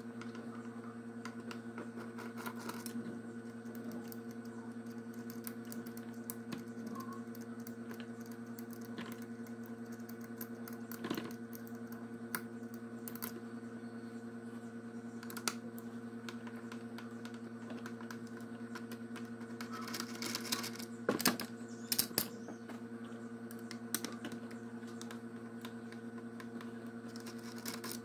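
Scattered light clicks and taps from screws, wires and plastic parts being handled on a disassembled electric fan motor, with a few quicker clicks about two-thirds of the way in, over a steady low hum.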